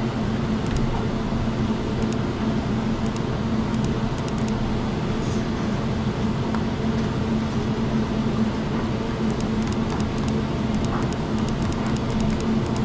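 Steady machine hum and hiss, like a fan running, with faint light clicks that come more often near the end.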